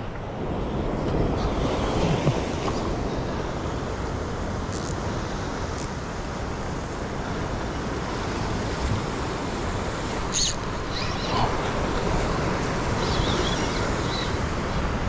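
Ocean waves surging and washing, with wind buffeting the microphone. A few sharp clicks cut through, the loudest about ten seconds in.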